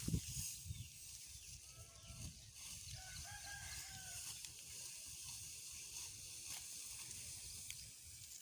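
A distant rooster crowing, starting about two seconds in and running to about four seconds, faint over a steady high hiss.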